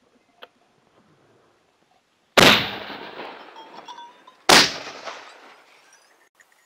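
Shotgun fired twice, about two seconds apart, each loud shot trailing off in a long echo.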